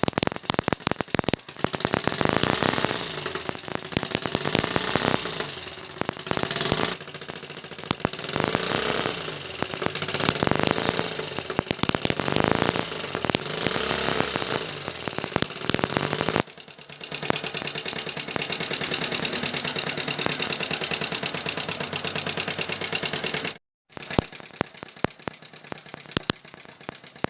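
Hero Honda CBZ Xtreme single-cylinder motorcycle engine being blipped again and again, rising and falling about every two seconds. It then runs steadily, and near the end drops to a quieter idle with sharp ticks. The engine has an abnormal noise that the owner calls a sound problem.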